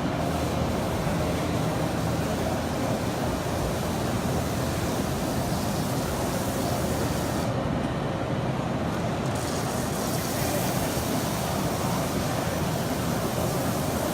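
Steady, even din of a busy machine-tool exhibition hall, a dense rumble with a low hum running under it.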